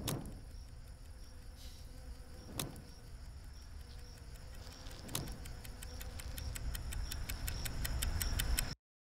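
Animated-film sound design: three sharp hits about two and a half seconds apart over a faint steady high tone, then clock ticking that speeds up and grows louder before cutting off suddenly.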